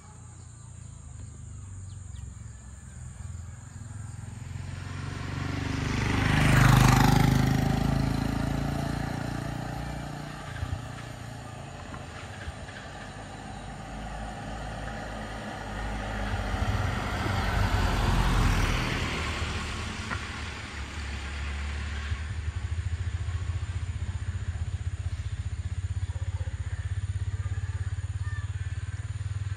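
Road traffic passing close by. The loudest vehicle rises to a peak about seven seconds in and fades with a falling whoosh, a second passes around eighteen seconds, and a steady low engine rumble follows.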